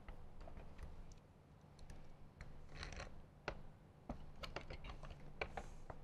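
Light, irregular clicks and small scrapes of a T-handle 3/16 Allen key working bolts into a plastic speaker pod, louder in the second half, over a low steady hum.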